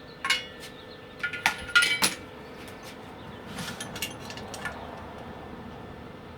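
Small metal parts clinking and tapping against each other: a single clink, then a quick cluster of louder ringing clinks about a second and a half in, then a few lighter ticks.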